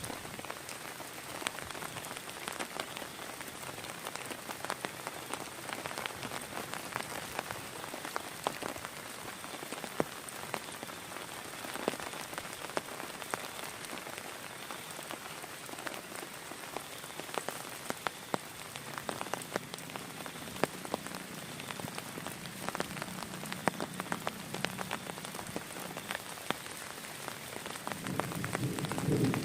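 Heavy rain falling steadily, with many individual drops ticking sharply close by. A low rumble swells near the end.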